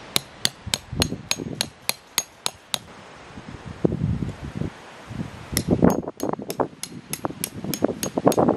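Hand hammer driving tent pegs into gravelly ground: quick, even, ringing blows at about three a second. There are two runs, with a pause of roughly three seconds between them.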